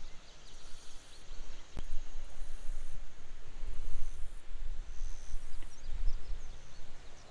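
Wind rumbling on the microphone, with an insect's high buzzing in pulses about once a second and faint bird chirps. There is a single sharp click about two seconds in.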